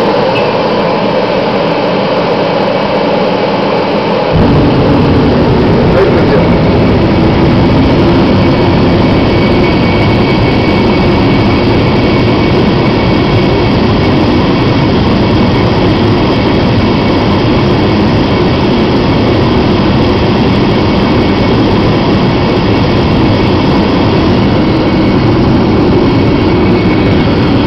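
Torpedo (forced-air) heater converted to burn waste motor oil, running: a loud, steady rush of its fan and pump motor, with a deeper rumble joining about four seconds in as the burner lights.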